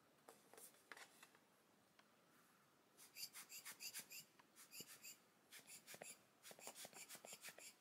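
A rubber-bulb air blower (an alcohol ink blower tool) squeezed over and over, giving soft, short puffs of hissing air several times a second. The puffs come in runs starting about three seconds in.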